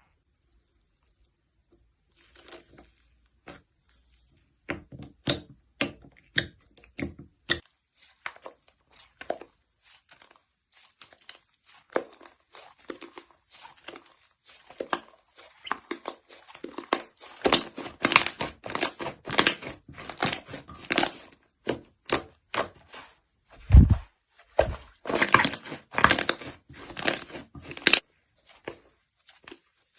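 Slime being handled and pressed, giving a stream of sharp crackles, pops and crunches that is busiest in the second half, with one low thud near the end.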